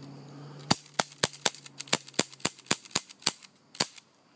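Airsoft gun firing a rapid string of about a dozen sharp shots, roughly four a second, with a short gap before the last one.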